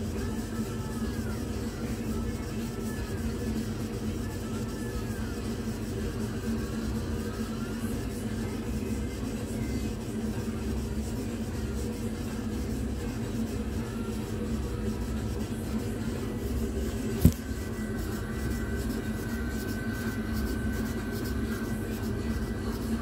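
Laser engraving machine running as it engraves wood: a steady hum of its fans and air assist, with faint rising and falling whines from the head's motors as it moves during the first part. One sharp click comes about seventeen seconds in.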